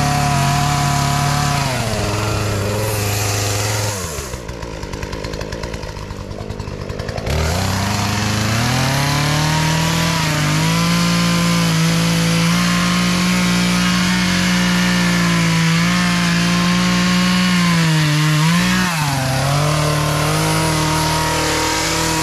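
Gas chainsaw revving high while cutting away brush and small limbs. It drops back to idle for about three seconds around four seconds in, then revs up again and holds high for most of the rest, with a brief dip near the end.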